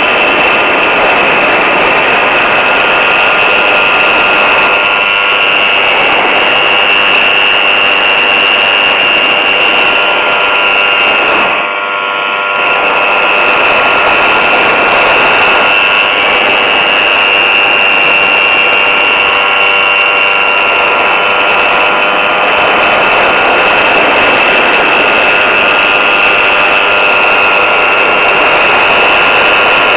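Ultralight trike's engine running steadily in flight with a buzzing, saw-like drone and rushing wind, dipping briefly in level about twelve seconds in.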